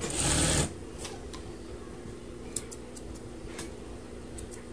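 Juki industrial sewing machine stitching in a quick run that stops about half a second in. After that comes a steady low hum with a few light clicks and ticks as the fabric is handled.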